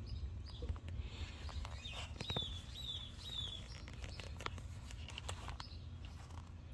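A bird chirping three times in quick succession midway through, with fainter high chirps around it, over scattered sharp clicks and a steady low rumble.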